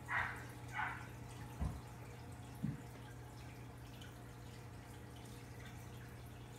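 Aquarium water trickling and dripping over a steady low hum, with two short splashy sounds in the first second and two dull thumps soon after.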